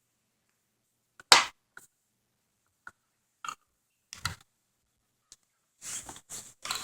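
Scattered clicks and light taps of a tablet and its small parts being handled during reassembly, the loudest about a second and a half in, with a cluster of soft handling noise near the end.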